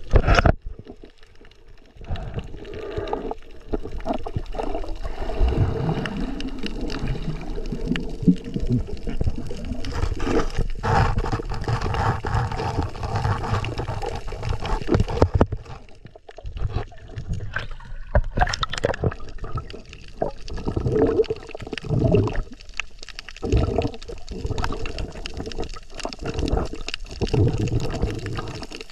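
Muffled water sloshing and gurgling, heard through a GoPro's microphone underwater. It comes in uneven surges, with a sharp burst at the very start and a brief lull about halfway through.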